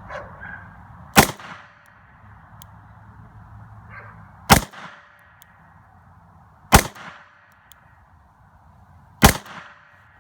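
Four shots from a Smith & Wesson 929 Performance Center 9mm revolver, spaced two to three seconds apart, each a sharp crack with a short echo.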